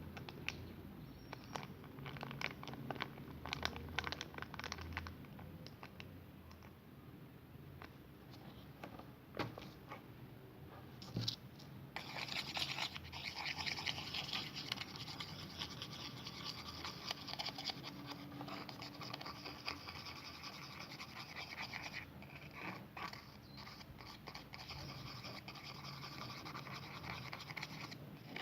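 Repeated scratching and scraping of a utensil stirring a thick mixture in a container, mixing shampoo-based slime. Scattered clicks and light knocks at first, then continuous rubbing strokes from about halfway in.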